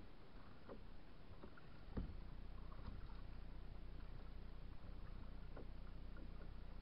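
Faint water sounds of a kayak being paddled: small splashes and drips, with one sharp knock about two seconds in, after which a low steady rumble sets in.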